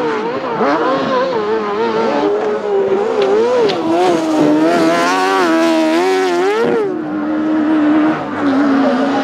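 Autocross race engines revving hard on a dirt track. The pitch climbs and falls with throttle and gear changes, drops sharply about seven seconds in, then holds steadier.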